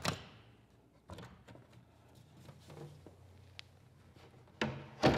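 Metal toggle latches on a plywood wall panel being snapped open and the panel handled: a sharp click at the start, a few faint clicks and rustling in the middle, and two sharper knocks near the end.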